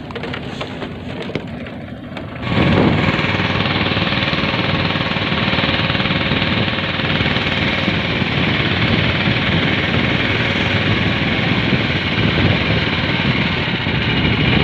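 A small boat engine running, quieter at first, then coming in loud about two and a half seconds in and running steadily.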